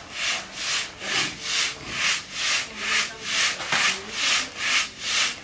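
Wheat grain rattling and hissing in a large wooden-framed screen sieve, swung back and forth by two men in an even rhythm of about two and a half strokes a second. Seed wheat is being sieved clean of chaff and clods before sowing.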